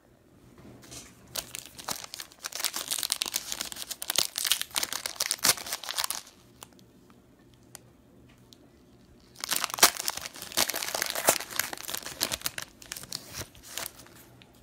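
Trading-card pack wrappers being torn open and crinkled by hand, in two spells of a few seconds each with a short pause between.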